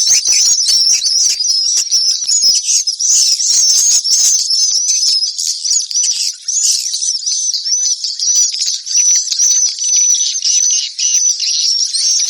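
Edible-nest swiftlet twittering: a dense, unbroken stream of rapid, high chirps from many birds. This is a swiftlet call recording of the kind played to lure swiftlets into a nesting house.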